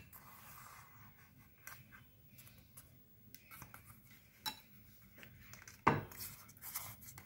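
Steel spoon scraping and clinking inside a stainless steel mixer-grinder jar as ground sugar powder is emptied into a bowl. There are scattered light clinks, and a sharper knock about six seconds in.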